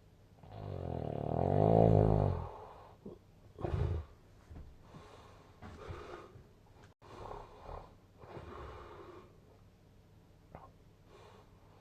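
A sleeping person snoring: one loud, drawn-out snore with a rattling, wavering pitch about half a second in, a short sharp snore just before four seconds, then softer snoring breaths every couple of seconds.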